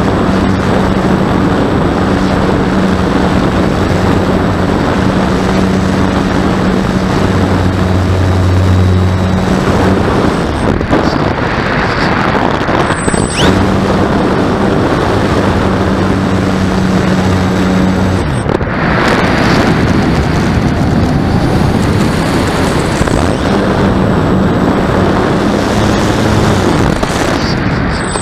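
Loud, continuous rushing air noise, like wind buffeting the microphone, with a low steady hum that drops out and comes back several times.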